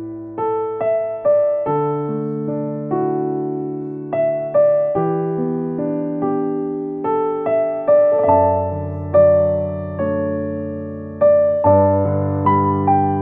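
Background music: solo piano playing a slow melody over held chords and bass notes, each note struck and left to fade.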